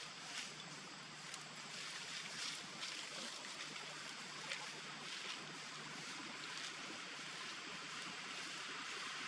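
Steady outdoor background hiss with faint, scattered ticks and light rustles, as a macaque picks through grass and leaf litter.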